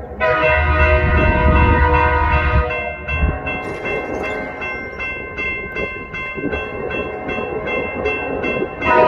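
Air horn of an approaching BNSF diesel freight locomotive blowing a sustained multi-note chord. It drops in level about three seconds in and swells loud again near the end.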